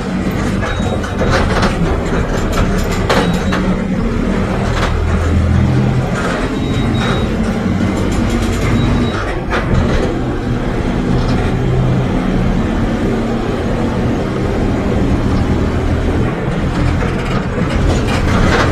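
Mercedes-Benz OF 1721 BlueTec 5 city bus under way. Its diesel engine drones and swells at times, amid frequent rattles and knocks from the bus body.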